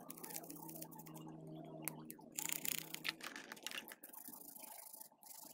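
Toothbrush scrubbing the plastic housing of a flip phone in a basin of soapy water: faint, irregular bristle scratching and wet splashing, with a louder bout of scrubbing about halfway through.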